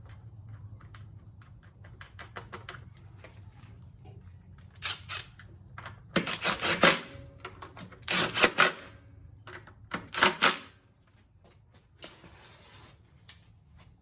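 Clicking and rattling from hand work on a lawn mower, with light scattered clicks followed by three louder rattling bursts about two seconds apart, over a steady low hum.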